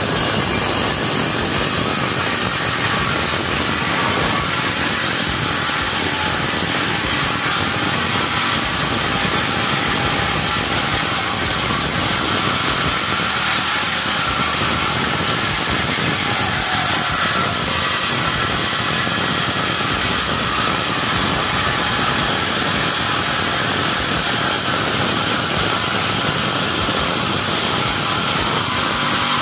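Homemade table saw, a 7-inch circular blade driven by a salvaged jet-pump water-pump motor, ripping a 5 cm thick wooden board lengthwise. A steady, loud cutting noise throughout; the motor holds its speed through the cut without bogging down.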